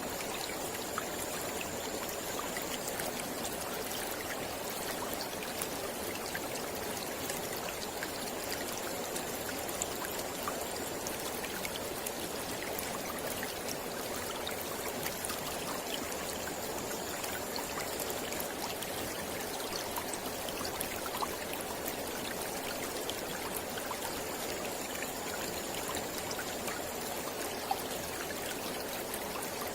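Mountain river flowing steadily, a constant rush of water with small splashes and trickles scattered through it.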